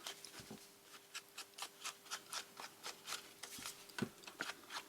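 Ink being rubbed onto the edges of a paper envelope, a quick run of light dabbing strokes on paper at about four a second.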